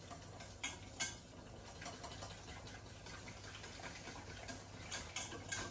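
Metal whisk stirring cheese sauce in a saucepan, clicking against the pan a few times at irregular intervals, over a steady low hum and the faint bubbling of boiling pans.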